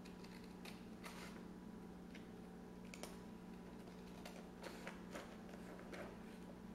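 Hand scissors cutting a sheet of paper in a series of faint, short snips at irregular intervals.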